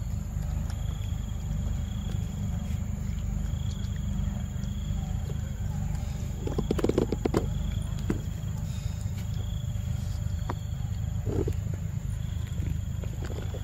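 Macaque biting and chewing a ripe mango close to the microphone: short wet crackling bites, loudest in a cluster about seven seconds in and again briefly near eleven seconds. Under it runs a steady low rumble and a faint high steady whine.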